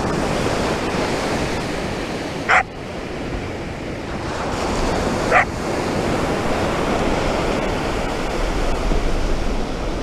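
Ocean surf washing steadily on the shore, with a dog giving two short, high barks, about two and a half seconds in and again about three seconds later.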